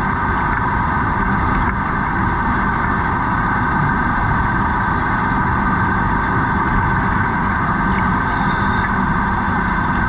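Steady mechanical drone heard underwater, even and unbroken, with a hiss over it.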